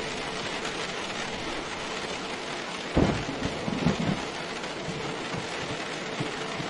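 Steady rain falling. About three seconds in there is a sudden low rumble that lasts just over a second.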